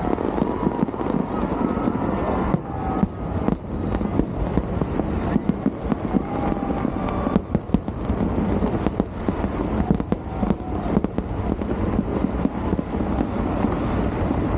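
Fireworks display: a continuous rumble of bursts, broken by many sharp bangs and crackles.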